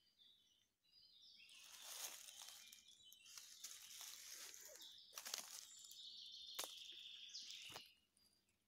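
Faint rustling and crunching in dry leaf litter on a forest floor, starting about a second in and stopping near the end. A thin high tone runs through the second half.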